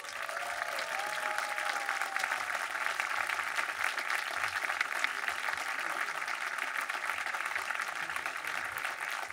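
Theater audience applauding steadily as gift blankets are presented on stage, the clapping swelling in just at the start and holding throughout.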